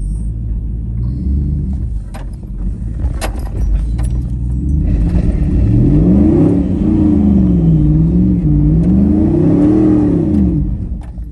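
GMC Yukon's V8 engine working at low speed as the truck crawls over boulders, heard from inside the cab; in the second half it revs up and down several times. A few sharp knocks come in the first half.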